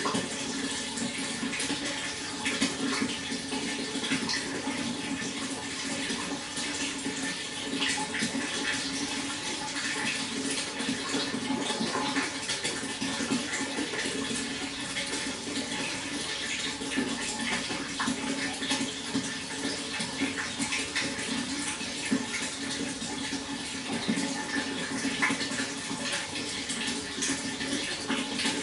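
Water flowing and splashing steadily, a continuous rush with many small irregular splashes and trickles.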